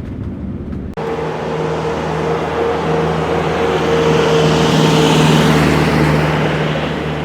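Road vehicle engine running with road noise, a steady hum under an even rush. About a second in it becomes louder, swells towards the middle and eases off near the end.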